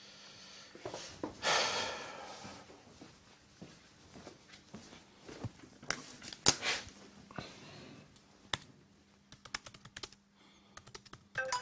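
Typing on a laptop keyboard: scattered key taps, then a quick run of clicks near the end. It follows a louder rustling scrape about a second and a half in.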